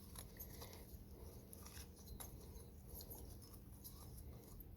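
Near silence: room tone with a steady low hum and a few faint clicks and rubs from hands handling small engine parts.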